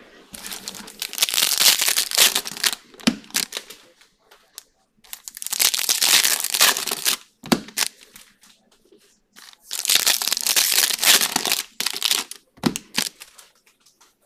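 Foil trading-card pack wrappers being torn open and crinkled, in three long bouts of crackling with a few small knocks between them.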